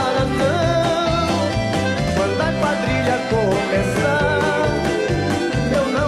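Lively music with a steady, repeating bass beat and a bending melody line above it.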